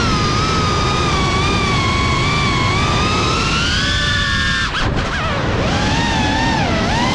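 Brushless motors and propellers of a Cinelog35 cinewhoop FPV drone whining, recorded by the GoPro mounted on it, over a steady rush of wind. The whine rises and falls with the throttle, drops briefly about five seconds in and dips again near the end.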